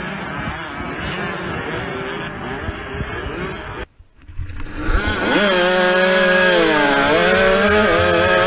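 Dirt bike engines at a desert race start, a steady mass sound that cuts off about four seconds in. Then, after a brief dip, a two-stroke KTM supermini's engine is heard close from the rider's helmet camera, revving up and down as it rides the trail.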